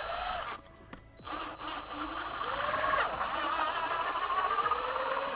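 Powered screwdriver driving a self-tapping screw into aluminum until the screw strips out and loses its hold. The motor whines in two runs with a short pause about a second in, its pitch rising and falling as the load changes.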